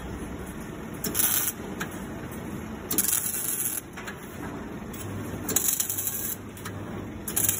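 CO2-shielded MIG welding on steel wire: a series of short tack welds, each a burst of arc crackle and sizzle under a second long, about four in all, spaced a second or two apart. A steady low hum joins about five seconds in.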